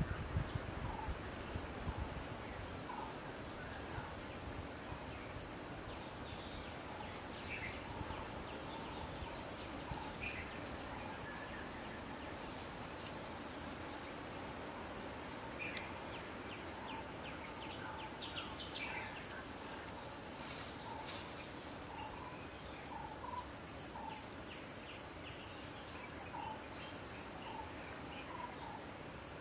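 A steady, high-pitched insect drone from the surrounding scrub, with scattered short bird chirps over it.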